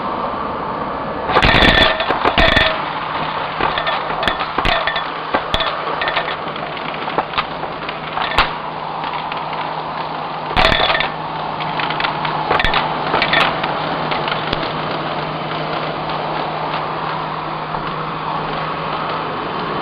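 Vacuum cleaner running steadily through a crevice tool, with crunching clicks and rattles as beads, glitter and small debris are sucked up. The crunching is densest from about a second and a half in and again around ten and a half seconds, with scattered single clicks between.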